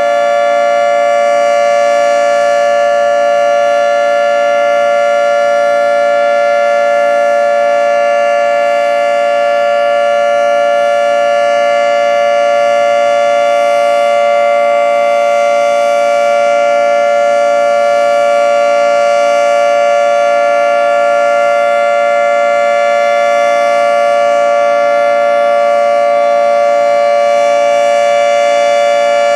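Federal Signal 2T22 dual-tone omnidirectional outdoor warning siren sounding its steady Alert signal: a loud two-note chord held constant in pitch and level, without a break.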